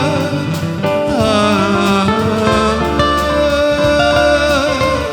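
Instrumental break in a slow Vietnamese ballad: a lead melody with bending, wavering notes over held chords, with no singing.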